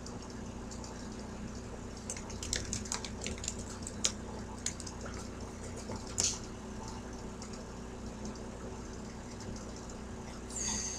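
Quiet room tone with a steady low electrical hum and a scattered few faint clicks and ticks, with one short hiss about six seconds in.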